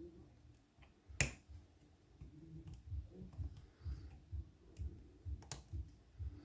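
Lock pick and tension wrench working a small brass padlock: light scraping and ticking with two sharper clicks, about a second in and again about five and a half seconds in, over soft low knocks repeating a couple of times a second as the lock is handled.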